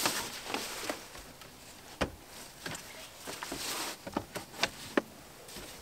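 A folding fabric windshield sunshade being fitted against a car windshield: a rustle of the fabric at first, then a string of light knocks and clicks, the sharpest about two seconds in.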